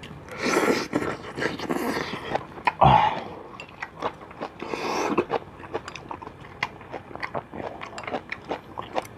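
A person slurping soup and food from a bowl held to the mouth, several noisy slurps in the first half, then chewing with many small clicks and smacks.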